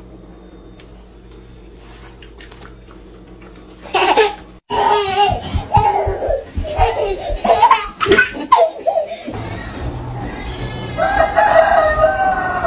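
Quiet room sound with a few faint clicks, then a few seconds of loud laughing and squealing voices. From about eleven seconds come long drawn-out calls that dip in pitch: a rooster crowing.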